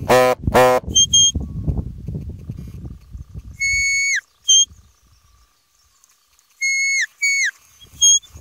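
Sheepdog whistle commands to a working collie: a long steady note that drops away at its end, then a short higher chirp, then two more notes that fall at the end and another short chirp near the end. Right at the start, two short harsh calls.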